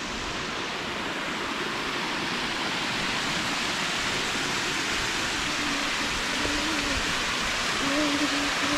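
Rushing water of a small waterfall or stream: a steady hiss that slowly grows louder. Faint humming joins in the second half.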